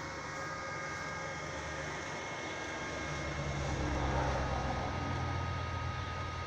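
A low engine rumble that swells about three seconds in and then eases off, over a faint steady high-pitched hum.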